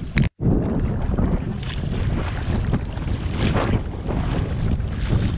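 Wind buffeting the action camera's microphone, a steady heavy rumble with irregular gusts, over water lapping around the camera's stake in a shallow bay. A brief sharp noise and a short dropout sit right at the start.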